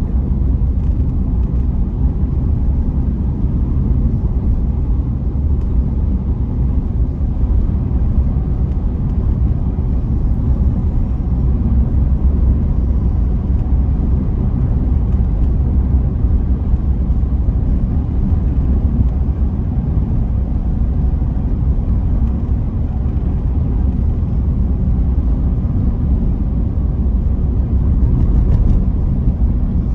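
Steady low rumble of a vehicle's engine and tyres while driving through a road tunnel, heard from inside the cabin.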